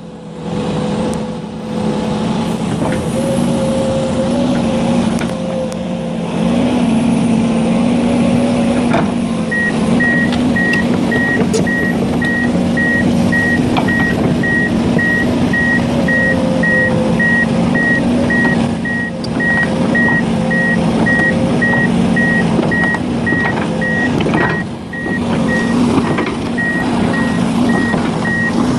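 Heavy diesel machinery engine running steadily, with a reversing alarm starting about a third of the way in and beeping about twice a second.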